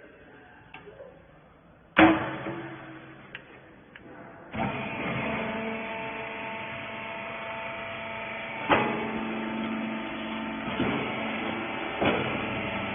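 A loud metal clang, then a few seconds later a baling machine starts and runs with a steady hum of several held tones, with sharp knocks and clanks over it now and then.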